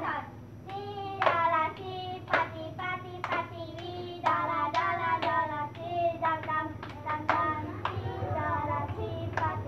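Children singing a hand-clapping game song, with sharp hand claps falling in time with the singing, roughly one or two a second.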